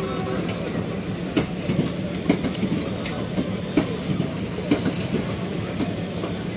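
Pune–Gorakhpur Express coaches rolling into the station over a steady rumble, their wheels clacking at uneven intervals over rail joints.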